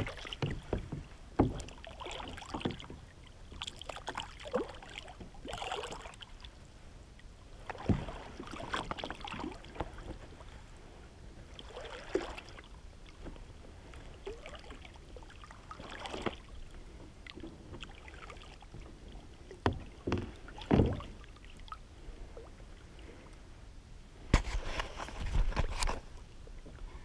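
Water sloshing and small splashes around a kayak, with scattered light knocks against the hull, a few louder splashes, and a louder rushing stretch near the end.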